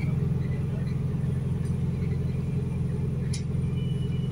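Steady low drone of a New Routemaster diesel-electric hybrid bus underway, heard from inside the passenger cabin, with a single sharp click about three seconds in.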